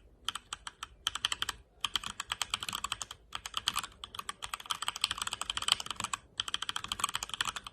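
Mechanical keyboard with HyperX's own red linear switches being typed on in quick runs of keystrokes, with a few short pauses between the runs.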